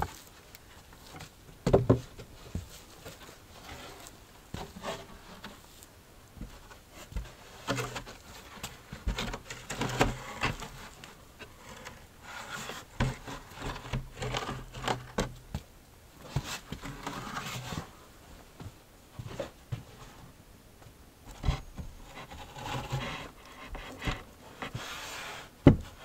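A plywood panel being handled and fitted into a wooden door opening: wood knocking against wood, with sharp knocks about two seconds in and just before the end, and stretches of scraping and rubbing between.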